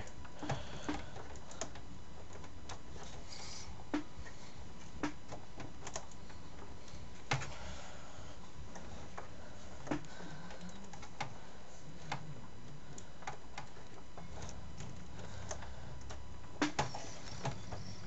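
Scattered light clicks and taps, a dozen or so spread unevenly, as a graphics card is handled and pressed down into a PC motherboard's expansion slot inside a metal case, over a steady background hiss.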